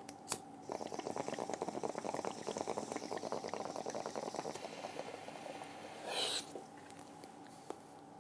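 Glass bong bubbling as smoke is drawn through its water, a rapid gurgle lasting about four seconds, followed about six seconds in by a brief rush of air.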